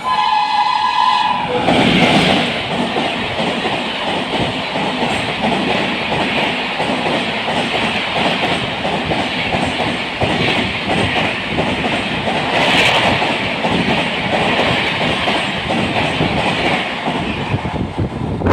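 Indian Railways express train sounding its horn, a pitched blast that cuts off about a second and a half in. Then the train runs past at speed, with a loud continuous rattle and clickety-clack of wheels over the rail joints.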